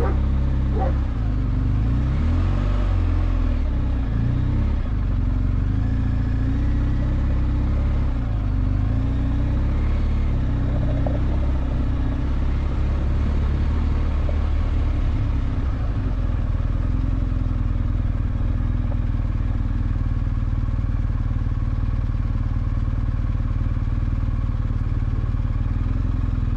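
Motorcycle engine running at low speed on a rough dirt track. Its pitch wavers up and down through the first half as the throttle changes, then holds steady.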